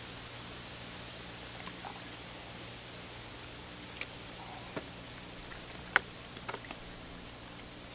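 Steady outdoor hiss of a lake shore, with a few faint clicks and short high squeaks scattered through it; the sharpest click comes about six seconds in.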